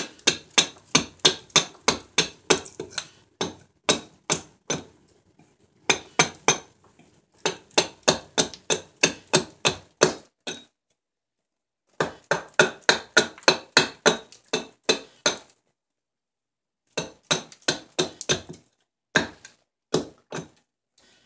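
Small hatchet chopping into a silver birch spoon blank held upright on a wooden chopping block: quick runs of sharp chops, about three or four a second, broken by short pauses.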